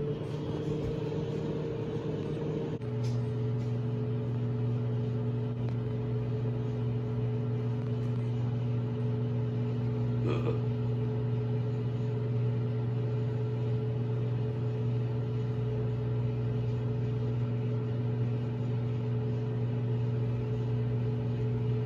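Samsung microwave oven running: a steady low electrical hum that rises in pitch as it starts up, changes slightly about three seconds in, then holds even, while it heats popcorn.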